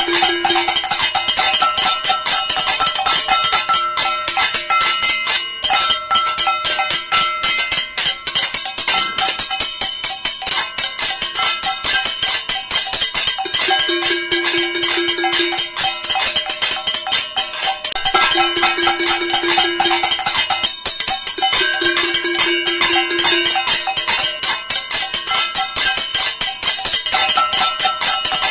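Cacerolazo: many pots and pans beaten rapidly with spoons or sticks by a crowd of protesters, a dense, continuous clatter of overlapping metallic strikes with ringing tones at several pitches.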